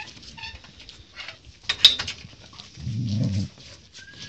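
Husky puppy and golden retriever puppy play-fighting: scuffling and sharp clicks, with a brief thin whine at the start. A low growl sounds about three seconds in and lasts under a second.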